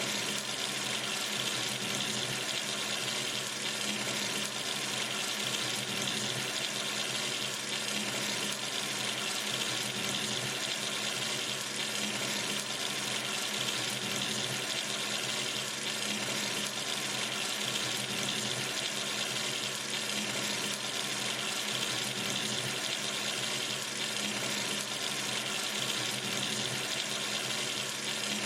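Sink tap running steadily, water pouring into the basin in an even hiss.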